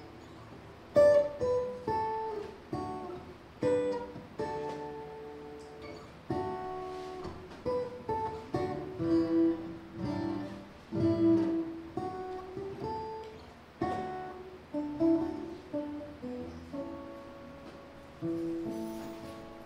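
Solo steel-string acoustic guitar playing a slow instrumental melody, single plucked notes and chords one after another, each left to ring.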